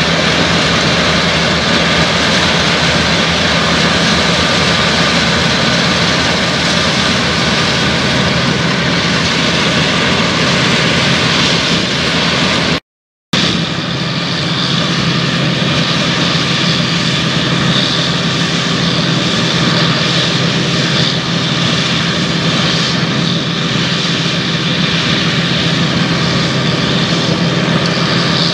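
Dronningborg 1250 combine harvester running steadily while cutting and threshing grain: a continuous mechanical drone of engine and threshing machinery, with a brief silent break about halfway through.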